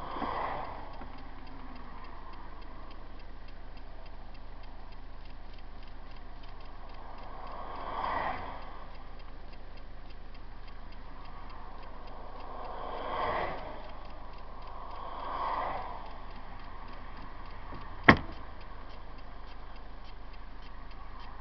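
Cabin of a Hymer motorhome on the motorway: steady road noise with a fast, even ticking running through it, the noise being recorded. A few short swells come as vehicles pass, and one sharp click comes near the end.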